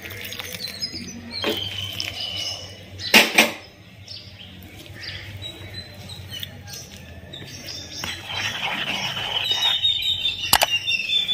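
A wire whisk stirring and scraping rice flour and warm water in a plastic bowl, with a few sharp knocks, the loudest about three seconds in. Birds chirp in the background.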